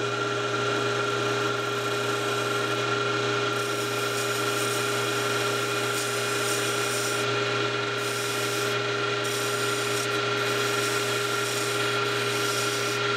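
Small lathe running with a steady hum, while a pointed hand tool scrapes the face of the spinning wooden wheel in several spells, scoring the line between tire and rim.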